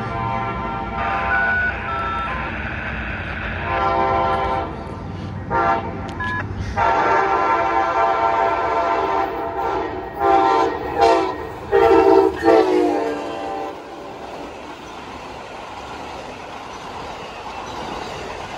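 Amtrak passenger train's horn sounding a series of long and short blasts as the train approaches, loudest about ten to thirteen seconds in. The horn then stops, leaving the steady rush and rumble of the train passing close by.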